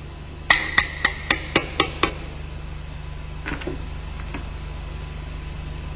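Seven quick, sharp metallic taps in a row, the first ringing briefly: the helical primary gear of an MZ EM 251 engine being tapped home on its shaft through a sleeve tool on its hub. A few faint clinks follow, over a low steady hum.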